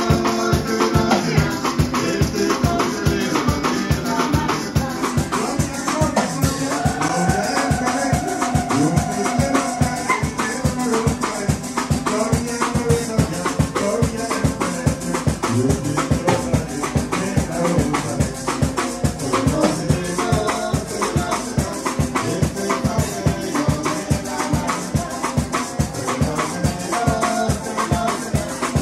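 A live parang band playing: a man singing over acoustic guitars and a drum kit, with a fast, even percussion beat.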